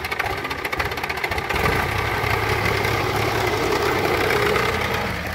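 HMT 4022 tractor's diesel engine idling with a fast, even clatter, then running louder and steadier from about a second and a half in.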